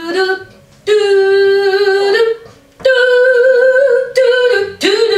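A woman singing a vocal warm-up: a few long, steady held notes on open vowels with short breaks between them, the last one bending in pitch near the end.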